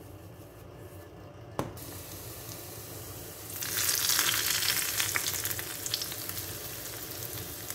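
Hot-oil tadka of cumin seeds, dried curry leaves, garlic and red chilli poured from a pan onto yogurt raita, sizzling as it hits. The sizzle comes in suddenly about three and a half seconds in and slowly dies down, after a single click earlier on.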